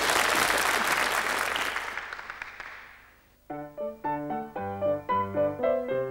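Studio audience applauding, the applause fading out over the first three seconds. After a short silence a piano starts playing, a run of notes in an even rhythm.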